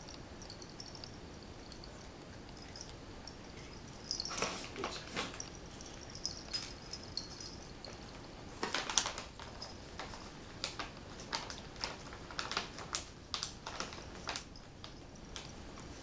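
Cats crunching freeze-dried raw chicken nuggets off a tile floor: scattered, irregular crunches and clicks, most frequent in the second half.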